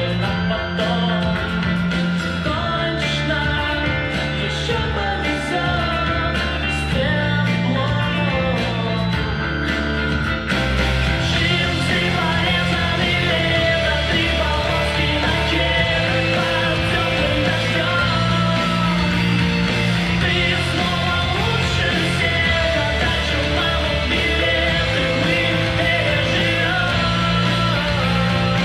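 Loud music with singing and guitar, a rock-style track, with a change in the arrangement about ten seconds in.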